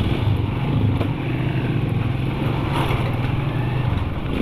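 Motorcycle engine running steadily at an even pace, a constant low hum with a rushing noise over it.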